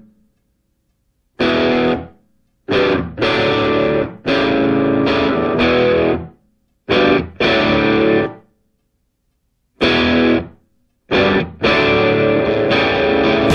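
Outro music: distorted electric guitar playing chords in short phrases, with brief silences between them.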